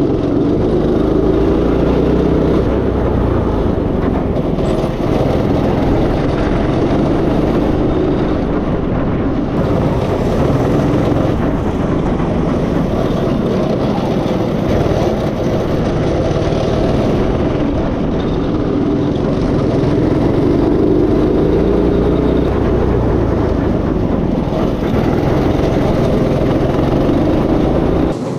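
Go-kart engine running under throttle on a track, its pitch rising and falling as the kart speeds up and slows.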